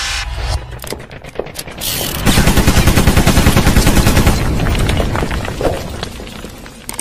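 Intro sound effect of rapid machine-gun-style fire, about ten shots a second. It starts about two seconds in after a few scattered cracks and fades out over the last couple of seconds.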